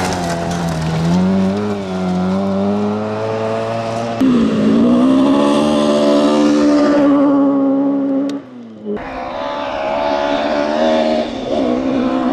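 Historic rally cars at full throttle on loose gravel. First a Mini's small four-cylinder engine revs up and down through gear changes. From about four seconds in a second car's engine climbs hard in pitch and holds high as it passes, and after a brief dip just past eight seconds another car, a Ford Escort Mk2, comes on, with gravel hiss under the engines throughout.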